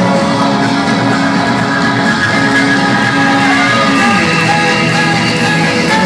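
A live electro-pop band playing loud through the PA: synthesizers, guitar and singing, heard from within the crowd.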